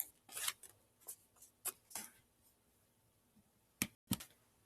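Faint rustling and scraping of a sheet of white computer paper being handled and folded, in several short separate scrapes, with two more near the end.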